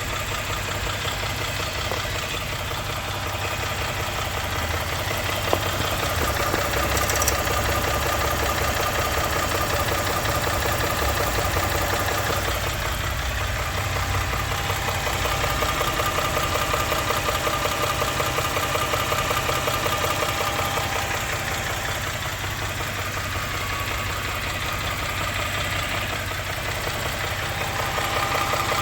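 Engine running steadily with a fast, even knocking from inside it, the sound of engine knock. The level swells and eases slightly, with one sharp click about five and a half seconds in.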